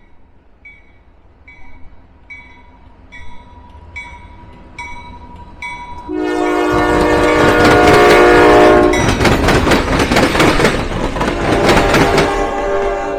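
A bell dinging steadily, about once a second. About six seconds in, a locomotive's horn begins a loud, long blast over the rumble and clatter of a passing train.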